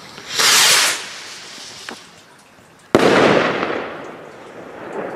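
Phönix Feuerwerk wish rocket launching with a short whoosh about half a second in, then a loud bang about three seconds in as it bursts, rolling away with echo.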